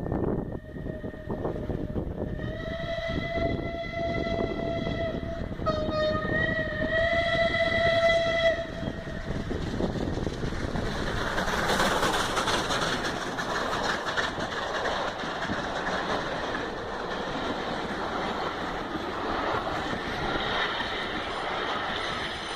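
Whistle of the Peppercorn A1 Pacific steam locomotive 60163 Tornado, a long steady blast with a short dip about six seconds in, sounding on until about nine and a half seconds. After that comes the rushing noise of the train running at speed, heard from the coach behind the engine.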